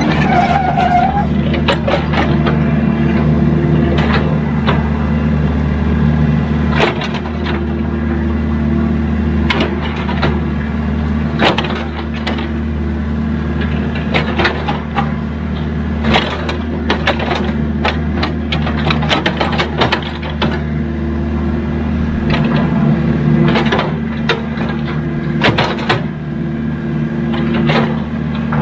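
Excavator's diesel engine running steadily under load, with many sharp, irregular clanks and cracks from the machine at work.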